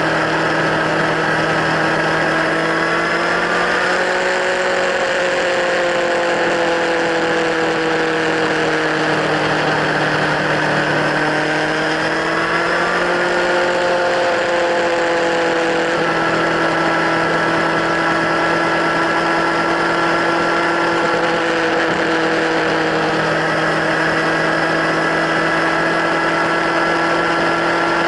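Kawasaki Z1000 inline-four engine idling through LeoVince slip-on exhausts, a steady, even note whose pitch drifts slightly up and down a couple of times.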